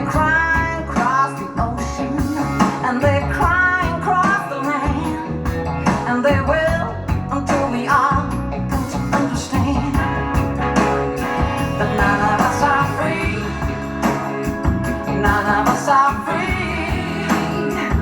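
A song with a singing voice and a steady beat played back through a Willsenton R8 tube amplifier and SLAudio transmission-line speakers.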